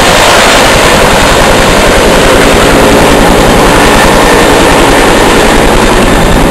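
Bell 212 helicopter taking off close by: a loud, steady, fast chop from its two-bladed main rotor over the noise of its twin turbine engines.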